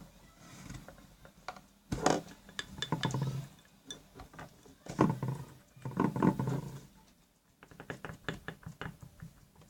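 A pen stirring a sticky glue-and-sunscreen slime mixture in a container: irregular scraping and clicking, with two louder spells of stirring.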